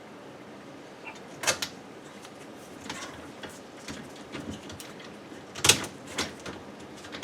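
Clicks and clatter of a dishwasher rack being handled on its rack adjusters, a string of separate knocks with two louder ones about a second and a half in and near six seconds.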